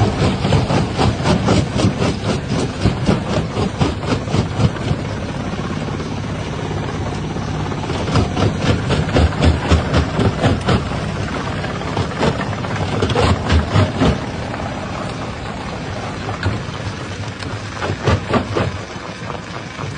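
Rock crusher running with a steady heavy rumble, broken by bursts of rapid sharp cracks and knocks as stone is crushed, in spells at the start, around the middle and near the end, with smoother running between.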